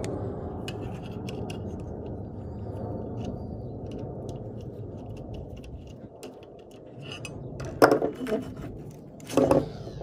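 A flathead screwdriver working a hose clamp on a fuel pump assembly: small metallic clicks and clinks, with two louder knocks near the end. A steady background noise fades out about two-thirds of the way through.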